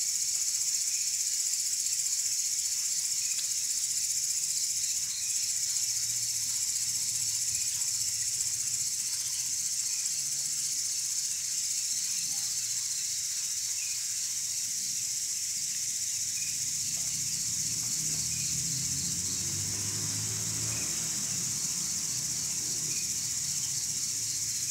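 Night insects, crickets among them, trilling steadily as a continuous high-pitched drone with a fast, even pulse, and fainter chirps every second or two. A faint low rumble comes in during the second half.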